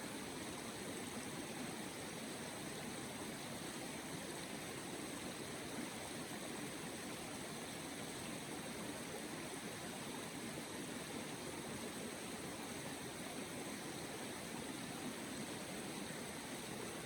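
Running water, a steady even rush like a stream or spring flowing.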